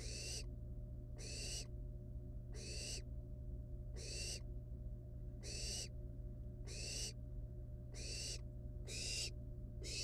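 Barn owl nestlings giving their rasping hiss calls, the 'snoring' food-begging call, repeated about every 1.3 seconds, each a harsh breathy hiss under half a second long.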